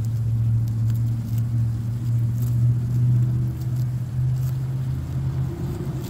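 A motor running steadily with a low hum that shifts slightly near the end, over faint crackles of goats tearing and chewing grass.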